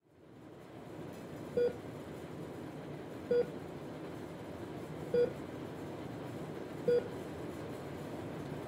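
Hospital heart monitor beeping steadily, one short tone with each heartbeat, about every 1.75 seconds. Under it is a steady hiss that fades in over the first second.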